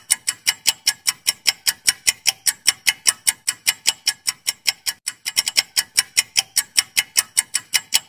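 Countdown-timer ticking sound effect: fast, evenly spaced clock ticks about five a second, with a brief uneven patch a little past the middle, marking the time allowed to answer. It cuts off abruptly at the end.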